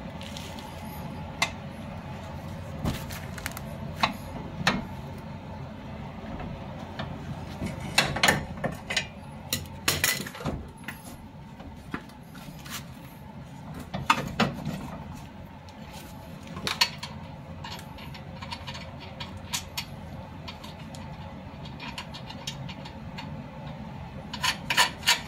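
Metal clinks and knocks of a wrench working the nut of a new ball joint on a car's lower control arm. They come irregularly, a few at a time, over a steady low hum.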